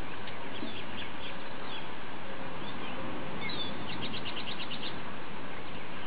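Small songbirds chirping, with a rapid trill about four seconds in, over a steady background hiss.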